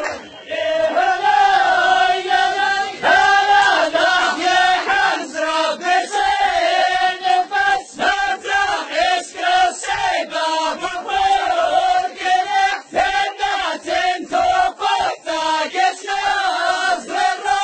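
An all-male chorus chanting in unison in the Amazigh ajmak style of the Souss, in long held lines. Regular handclaps come in about six seconds in and keep a steady beat under the chant.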